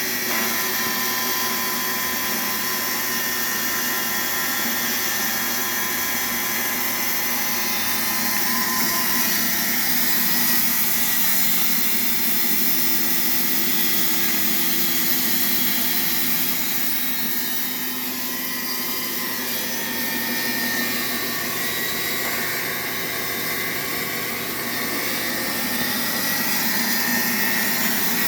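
Homemade electric band sawmill running, its blade cutting through a log: a steady motor and blade whine mixed with sawing noise.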